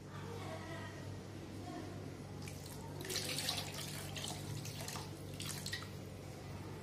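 A hand sloshing and squishing through a thin, watery curry mixture of tamarind water, ground coconut, prawns and dried fish in a plastic bowl, with soft splashes, the strongest about three seconds in. A steady low hum runs underneath.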